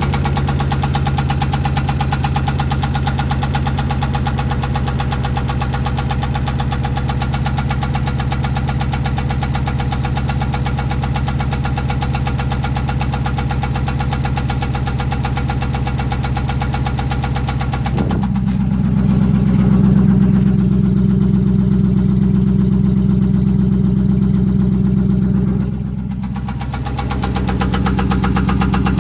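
5.7 L Hemi V8 idling with a steady rhythmic knock that the owner suspects is rod knock from a spun bearing, or a failed camshaft and lifters; the engine has a misfire in cylinder 8. About two-thirds through, the sound turns muffled with a stronger low hum for several seconds before returning.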